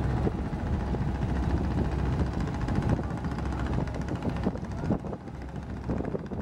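Small river passenger launch's engine running steadily as it passes at speed, with water rushing at its bow; the deep engine drone weakens about four and a half seconds in.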